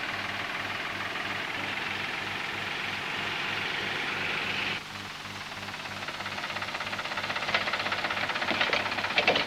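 Ford farm tractor's engine running steadily. About five seconds in it cuts off abruptly, giving way to a quieter, pulsing engine sound with a few sharp clicks near the end.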